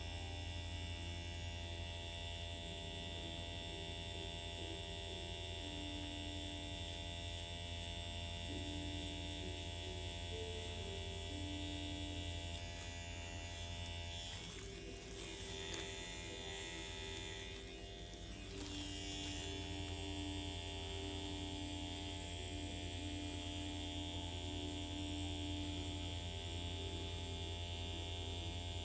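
Permanent-makeup machine (tattoo pen) buzzing steadily while doing nano brow strokes. It stops for a few seconds around the middle, then starts again.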